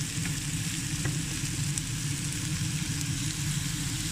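Onion, carrots, green peas and snow peas sizzling steadily in hot oil in a deep frying pan, over a steady low hum.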